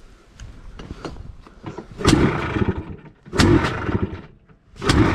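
A freshly rebuilt Yamaha Blaster's two-stroke single-cylinder engine being started. It fires briefly and dies twice, about two seconds in and again about a second later, then catches near the end and keeps running.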